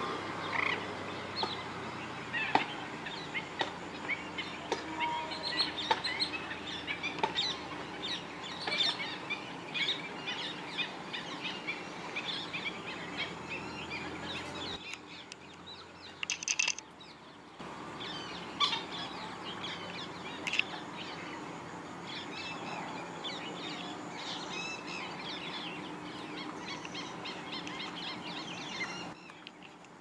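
A flock of black-winged stilts calling, with many short, sharp calls overlapping in a dense chorus. It thins out briefly about halfway through.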